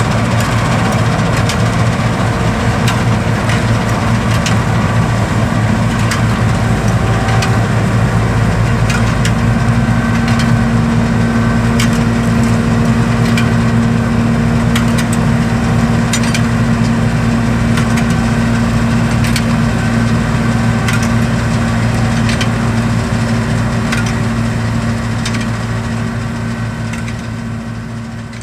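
John Deere 7720 Turbo combine running steadily while harvesting wheat: the turbo diesel engine's drone and the threshing machinery's hum, with scattered crackling. A steady higher hum joins about a third of the way in, and the whole sound fades out near the end.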